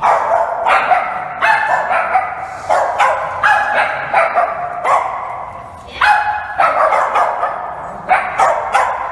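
Dog barking over and over in short, sharp barks, about one to two a second, with a brief pause around six seconds in.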